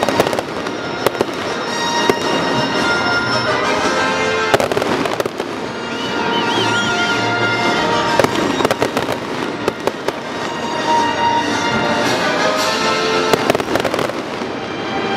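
Aerial fireworks bursting and crackling in several clusters, over music that plays throughout.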